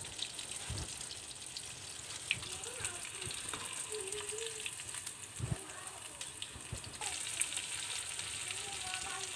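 Batter-coated prawns sizzling steadily in hot oil, with a scattering of small crackles, as they are deep-fried a second time on high heat to crisp them.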